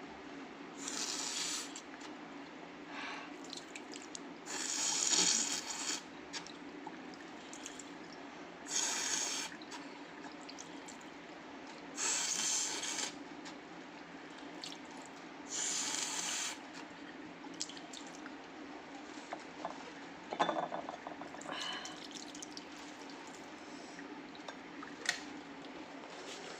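A woman with a heavy head cold blowing her nose hard, five or six short blows a few seconds apart. A few sharp clicks follow near the end.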